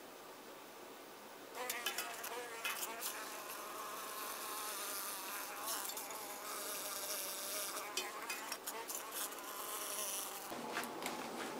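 A flying insect buzzing around, its wavering buzz starting about one and a half seconds in and dropping away near the end, with a few sharp taps.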